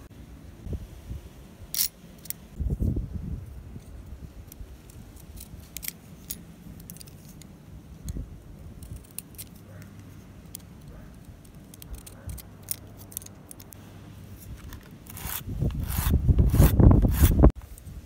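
Small scrapes, ticks and rubbing of hand tools working wooden popsicle sticks: a sharpened paper clip boring through the wood and a craft knife carving it. The handling gets louder and busier near the end, then cuts off suddenly.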